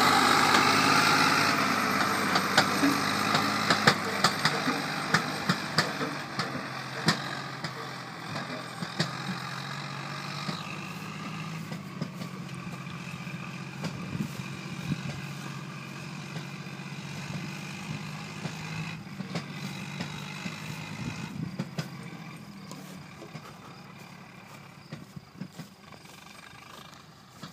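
Zetor 5011's three-cylinder diesel engine running under load as the tractor pulls a trailer full of firewood away, steadily fading with distance. Frequent sharp knocks sound over the engine.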